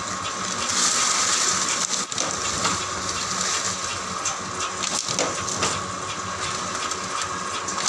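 Double-die dona (paper bowl) making machine running, a steady mechanical clatter and motor hum with a few sharp knocks as its dies press silver-foil paper into bowls.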